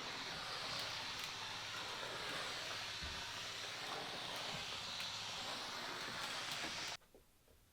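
A steady rushing noise that stops abruptly about seven seconds in.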